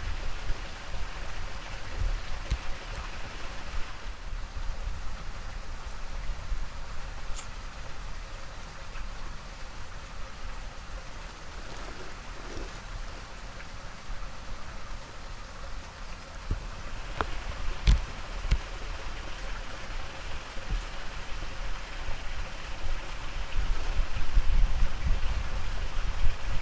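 Steady outdoor noise with uneven low rumbling that grows louder near the end, and a few sharp clicks about 17 to 18 seconds in.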